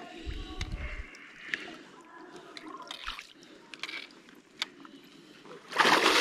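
Water lapping and trickling around a person wading through a river pool, with small drips and clicks, then a loud splash near the end as he moves through the water.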